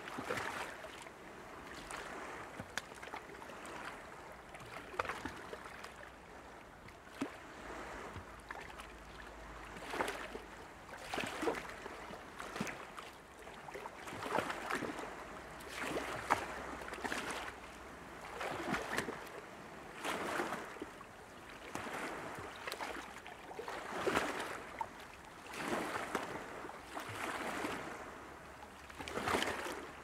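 Small waves washing onto a beach, each wash swelling and fading every two to three seconds.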